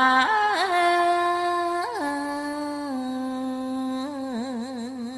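A single voice chanting Vietnamese verse, drawing out the last syllable of a line in long held notes that step down in pitch, with a wavering vibrato near the end.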